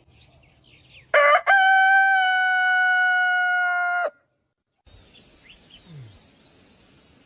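Rooster crowing once: a short opening note, a brief break, then a long held call of about three seconds that drops away at the end.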